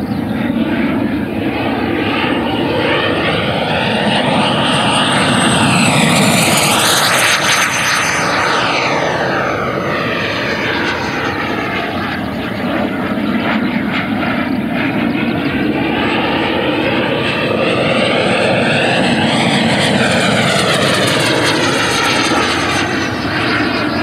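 High-power electric ducted-fan RC jet flying fast passes: a loud fan whine and rushing air that sweep up and down in pitch as the jet goes by, loudest about six to eight seconds in and again around twenty seconds in.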